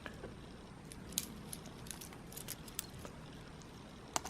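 Metal watch bracelet links clicking and clinking lightly as the watch is handled and turned over. Scattered small clicks, the sharpest one near the end.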